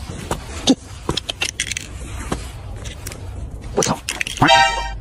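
Scattered light clicks and scrapes over a steady low rumble. A short, steady pitched cry sounds about four and a half seconds in.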